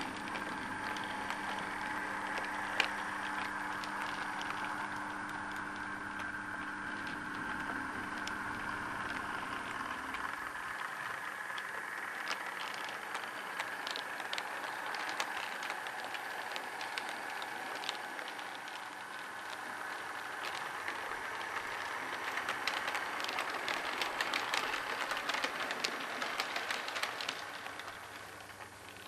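OO gauge model train running: a steady whine from its small electric motor, with wheels clicking over rail joints and pointwork, the clicks coming thicker in the second half.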